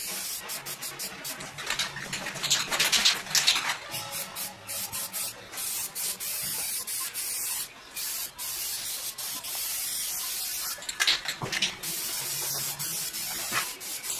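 Aerosol spray can of self-etching primer spraying onto bare sheet metal: a loud hiss in repeated bursts with brief pauses between them.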